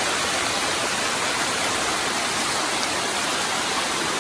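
Steady rushing of water: heavy rain and runoff streaming down a rocky dirt trail.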